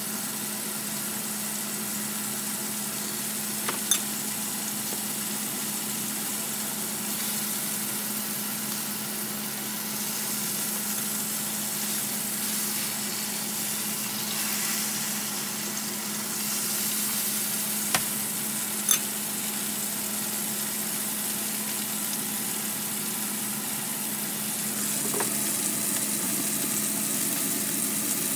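Steak sizzling in oil in a frying pan, steady throughout over a constant low hum. A few sharp clicks of tongs against the pan come about 4 s in and twice around 18–19 s in, and the sizzle gets a little louder near the end.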